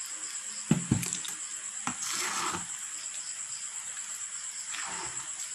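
A fork stirring and scraping a thick, sticky flour batter in a stainless steel bowl, with wet squishing and a few sharp clinks of the fork against the metal bowl in the first two seconds.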